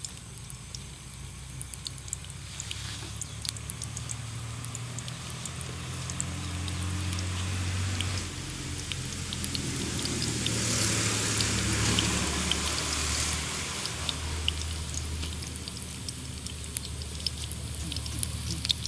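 Cooking over a wood fire: scattered sharp crackles and pops, with a hissing swell about ten seconds in that lasts a few seconds.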